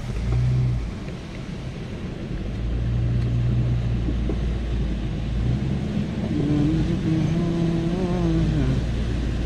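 Car driving through a flooded road, heard from inside the cabin: a steady low rumble of engine and tyres in standing water. A wavering tone joins in during the last few seconds.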